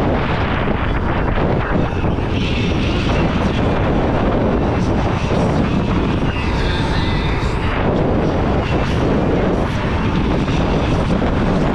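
Wind rushing steadily over the microphone of a rider on a Dualtron X2 Up electric scooter at speed. A high whine swells twice, about two seconds in and again around six to seven seconds.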